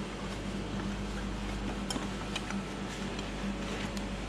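A few light metallic clicks of wrenches being handled in a tool chest drawer, over a steady background hum.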